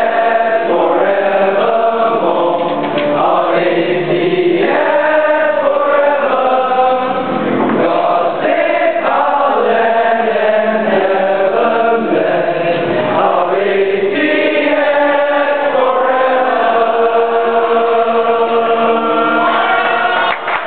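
A large crowd singing the school anthem in unison, holding long, sustained notes.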